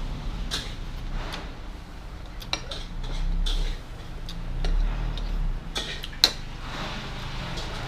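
Spoon and chopsticks clinking and knocking against a noodle bowl, scattered light clicks with one sharper clink about six seconds in.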